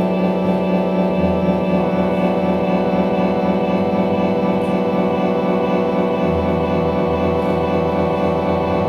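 Ambient drone music: many held, layered tones sounding steadily, with a deep low note coming in about a second in and again about six seconds in.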